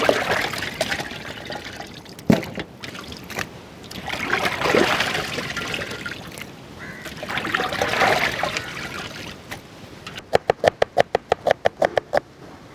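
Water sloshing and splashing in a large steel pot as raw chicken pieces are washed by hand, in three swells. Near the end comes a quick run of sharp clicks, about eight a second for two seconds.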